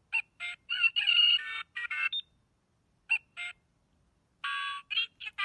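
XINJIA XJ-768N talking watch's tiny built-in speaker playing a series of short, tinny electronic notes and beeps, an alarm-style chime, pausing twice.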